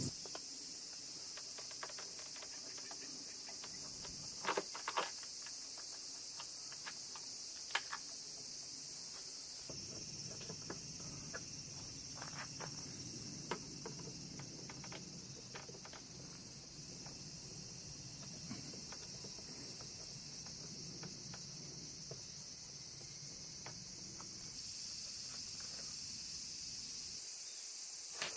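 A steady high hiss with scattered light clicks and taps, like small plastic parts being handled and set down. The background shifts abruptly a few times.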